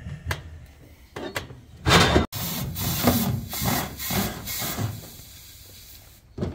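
A wheeled jack being pushed by its handle under the front of the UTV: a few knocks, then a loud scrape, then a run of scraping, rubbing strokes about two a second as it moves over cardboard and the steel crate frame.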